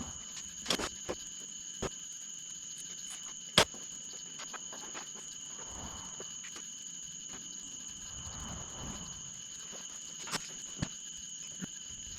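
Scattered sharp clicks and taps from hand work on a truck bumper, the sharpest about three and a half seconds in, over a steady high-pitched whine.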